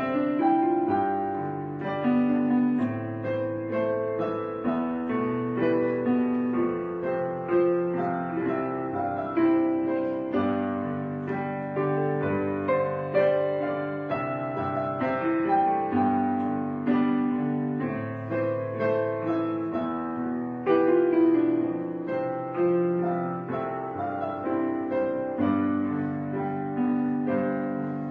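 Background piano music: a slow, gentle melody of notes that strike and fade.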